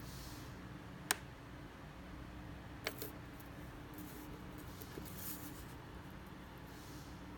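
Light metallic clicks of a steel-wire double hook bent from safety pins, and its swivel, being handled: a sharp click about a second in, a quick double click near three seconds and a faint one near five, over a faint steady hum.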